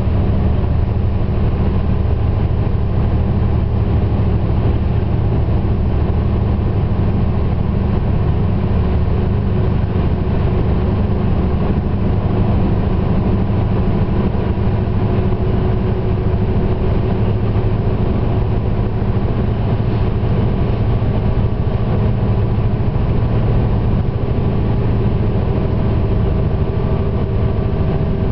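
Diesel engines of an FS ALn 668 railcar train running steadily under power on an uphill run, with the rumble of the wheels on the rails, heard from on board.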